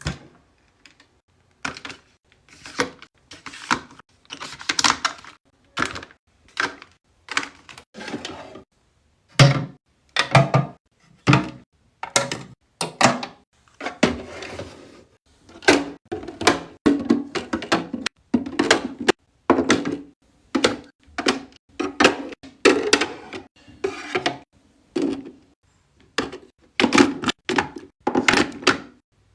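Skincare bottles, jars and tubes being handled and set down while a skincare mini fridge is restocked: a steady run of separate clicks, taps and clunks of plastic and glass, with a longer scraping rustle around the middle.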